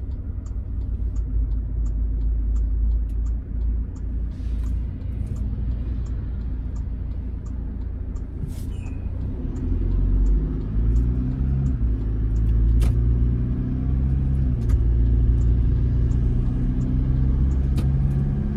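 Car cabin noise while driving: a low engine and road rumble, with the engine note rising as the car speeds up about ten seconds in, then running steadier and louder.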